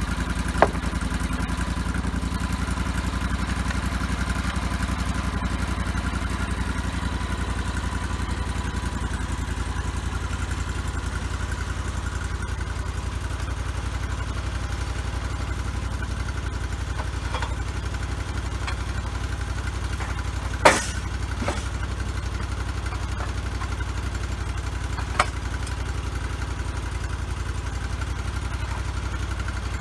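Engine of a homebuilt bandsaw sawmill running steadily, with a few short sharp knocks over it, the loudest about two-thirds of the way through.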